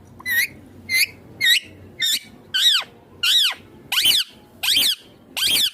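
Indian ringneck parakeet calling: a run of about nine short, harsh calls, each rising and then falling in pitch, repeated roughly every half second to second.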